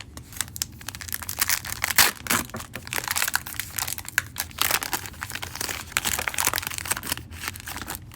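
A trading-card pack wrapper being torn open and crinkled: a dense, irregular run of crackles and rustles.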